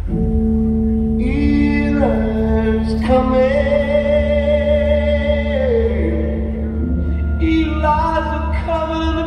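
Music for the dance: voices singing slow, long-held notes over a steady drone note that starts at the beginning.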